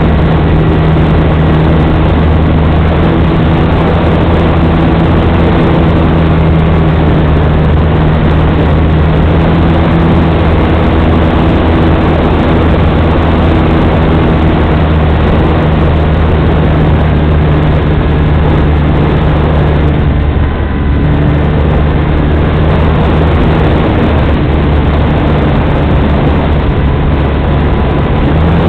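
An RC powered glider's motor and propeller running steadily, heard from a camera on board the model, with wind rushing over the microphone. The drone dips and breaks off for a moment about 20 seconds in, then picks up again.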